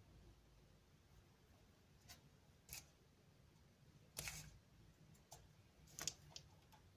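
Near silence with a few faint clicks and taps of painting tools being handled, the loudest about four and six seconds in.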